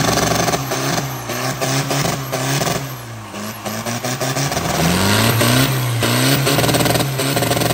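Turbocharged diesel engine of a customised rice tractor being revved up and down through its open upright exhaust stack, the pitch climbing and falling several times and held high for a couple of seconds near the end. It is revved hard enough to roll coal, over-fuelling so the stack blows black smoke.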